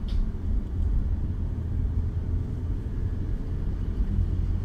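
Steady low rumble of a car's engine and tyres, heard from inside the cabin while it drives along the road.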